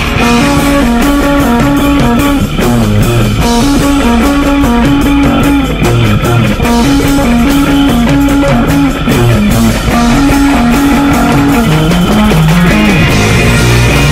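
Rock music with electric guitar and bass guitar playing a repeating riff.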